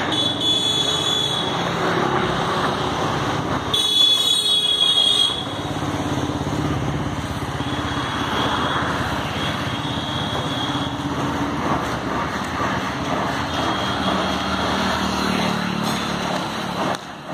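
Street traffic noise with motorbikes and other vehicles running steadily. A shrill high tone sounds for about a second and a half around four seconds in.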